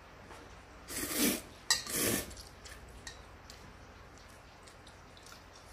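Someone eating instant ramen: two short noisy slurps of noodles about a second in, with a sharp click between them, then a few faint clicks of utensils.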